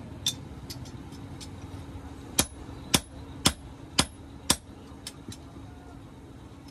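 Hand hammer striking an iron piece held in tongs on a steel anvil block: one blow, a pause, then five sharp blows about two a second, followed by two light taps. A steady low hum runs underneath.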